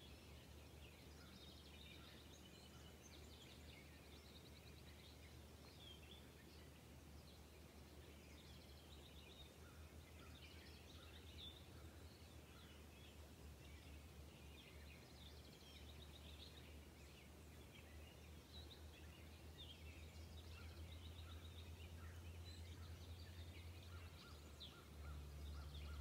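Faint outdoor ambience of songbirds: many short, scattered chirps and trills over a low steady hum, which grows louder near the end.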